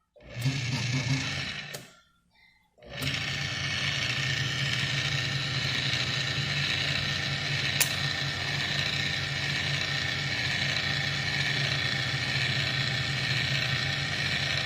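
Ilco 017 automatic key duplicator's electric motor running with its cutter wheel turning. It runs for about a second and a half, stops, then starts again about three seconds in and runs steadily, with a sharp click about halfway through.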